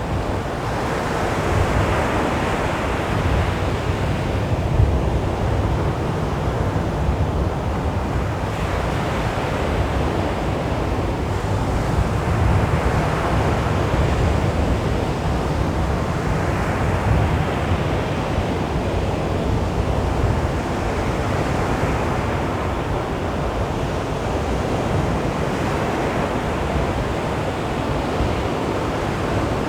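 Sea waves breaking and washing on a beach, a continuous rushing surf that swells and eases every few seconds.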